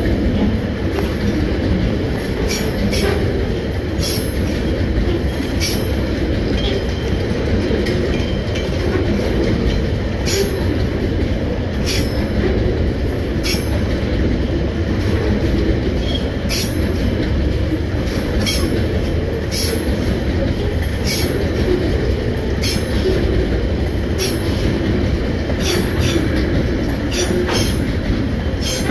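Freight train's loaded container flat wagons rolling past close by: a steady rumble of wheels on rail, with sharp wheel clicks about every second or two as wheelsets go by.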